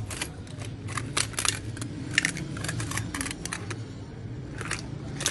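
Irregular sharp clicks and taps from small hard objects being handled, about a dozen, one with a brief metallic ring a little past two seconds in, over a steady low hum.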